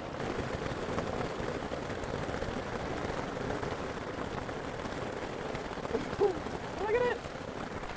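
Rain mixed with small hailstones falling on the Zpacks Duplex tent and the ground at its open door, heard from inside the tent as a steady, even hiss. Two short hums from a person come near the end.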